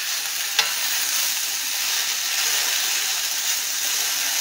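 Sliced potatoes sizzling steadily as they fry in melting butter in a skillet, with one light click about half a second in.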